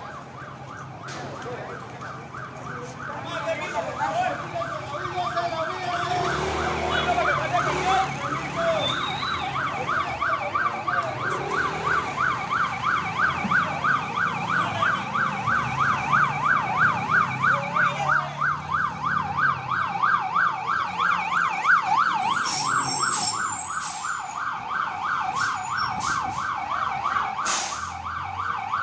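Fire engine's siren in a fast yelp, a wail rising and falling about four times a second, growing louder as the truck approaches. A high squeal and a few sharp clicks come near the end.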